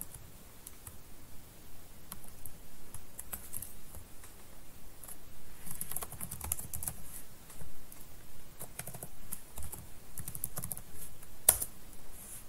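Typing on a computer keyboard: scattered keystrokes that come in quick runs, densest about halfway through, with one louder click near the end.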